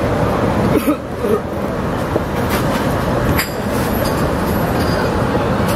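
Steady, loud din of a busy restaurant kitchen, a dense rumbling noise, with a few sharp knocks: one about a second in, one a little past halfway and one near the end.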